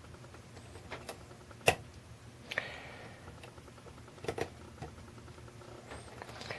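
Hook pick and tension wrench working the pins of a Schlage Everest LFIC core during single-pin picking: scattered sharp metallic clicks and ticks from the pick and the pin stacks, the loudest a little under two seconds in and a quick pair after about four seconds.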